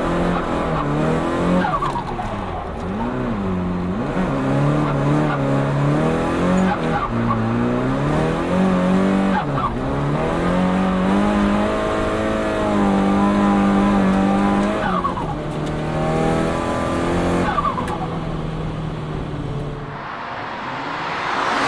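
Nissan Silvia S15's engine with an HKS GTIII-RS turbo kit, heard from inside the car while drifting, revving up and down again and again with brief dips as the throttle lifts. Short turbo flutter chirps come on the lifts, over tyres skidding on the tarmac.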